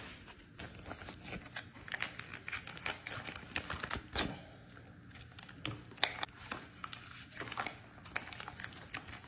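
Foil pouch of chicken crinkling as it is handled, torn open and squeezed out into a plastic bowl: an irregular run of small crackles and clicks.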